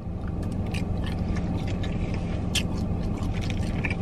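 Steady low hum of the car running, with scattered small clicks and crackles of shellfish being peeled by hand and fingers rummaging in a plastic bag of seafood boil.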